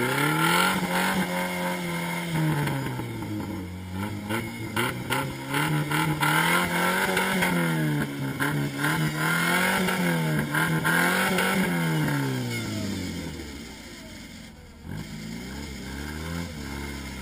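Engine of a caged off-road 4x4 revving hard and dropping back over and over as it claws up a steep rutted dirt climb, making little headway. Near the end the revs fall away briefly, then pick up again more quietly.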